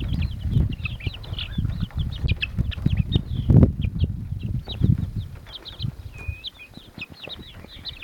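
Young chickens peeping in many short, high chirps, several a second, as they crowd and peck at bread held in a hand. A loud, deep rumbling noise with a few sharp knocks runs underneath.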